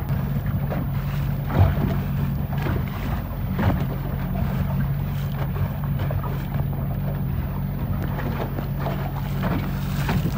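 A boat's motor running at a steady low hum, with wind buffeting the microphone and water splashing.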